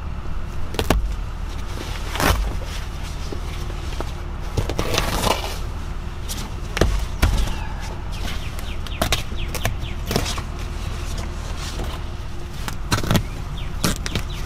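Utility knife cutting and tearing a truck seat's upholstery cover away from the foam cushion, with irregular short scrapes, rips and clicks over a steady low hum.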